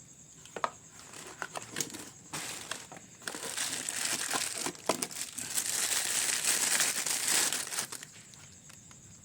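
Packaging being unwrapped and handled during an unboxing: a few sharp crackles over the first three seconds, then a dense stretch of rustling that stops about eight seconds in.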